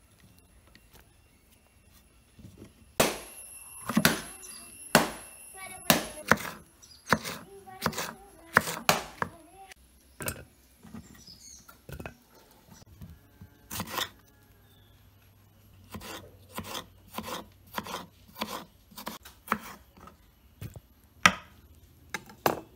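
Knife chopping vegetables on a wooden cutting board: sharp, irregular knocks in two runs, with a pause of a few seconds near the middle.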